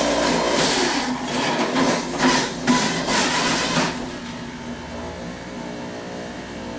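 Electric juicer's motor grinding carrots and apples as they are pushed down its feed chute: a loud grating whir. About four seconds in the load ends and the juicer runs on more quietly with a steady whine.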